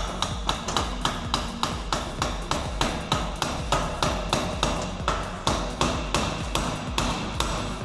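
Rapid, even hammer strikes on metal, about four a second, as a CV joint is tapped onto the axle shaft of a VW T4's front driveshaft to seat it.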